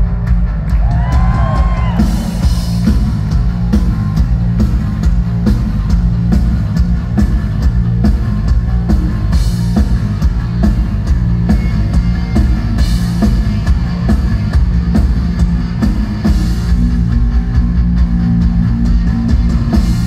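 Live garage-rock band playing loud with no vocals: distorted electric guitar, electric bass and a driving beat on a drum kit.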